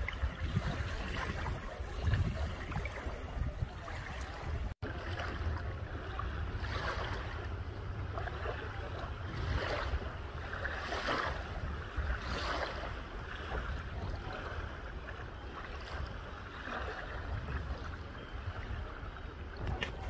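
Small waves lapping and washing onto a coarse sandy beach, in short swells every second or so, over a low rumble of wind on the microphone. The sound cuts out for an instant about five seconds in.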